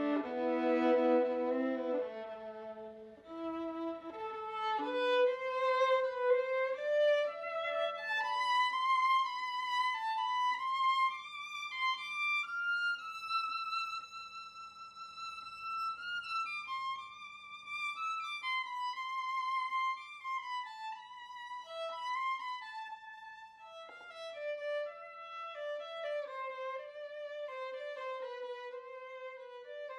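Solo violin playing a slow, free melody: low double-stopped chords over a held low note at first, then a line climbing to a long held high note, then wandering back down.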